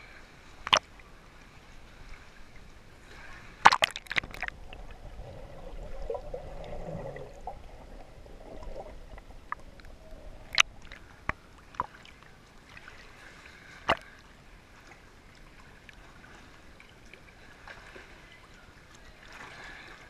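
River water sloshing and gurgling around a swimmer's waterproof action camera as it moves along and under the surface, with a muffled underwater swell in the middle. Several sharp knocks cut through it: once near the start, a quick cluster about four seconds in, and a few more between ten and fourteen seconds.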